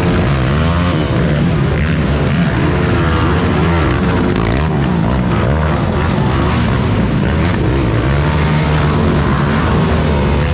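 Several racing ATV engines revving hard, their pitches rising and falling and overlapping as the quads work through a rough section of a cross-country course.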